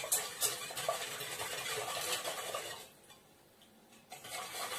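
A spoon stirring in a stainless steel saucepan, scraping and clinking against the pot as sugar and salt are mixed into hot water for a yeast dough. The stirring stops for about a second past the middle, then starts again.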